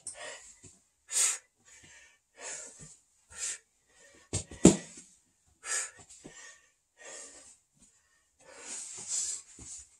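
A person's forceful exhales through the mouth, one short hissing puff with each crunch, roughly one every second or so. A couple of sharp knocks come near the middle.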